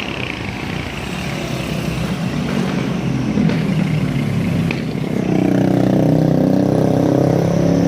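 Two buses' diesel engines passing close, getting louder, with a steady engine drone from about five seconds in.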